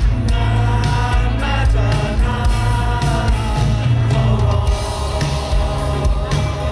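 A live rock band playing loud through a concert PA: a male lead singer sings into a microphone over electric guitar and the rest of the band.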